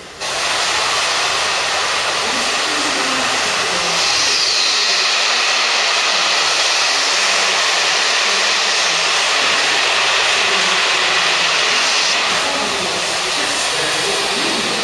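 Steady, loud hiss of escaping steam from Peppercorn A1 Pacific steam locomotive 60163 Tornado. It starts suddenly and is louder for several seconds in the middle.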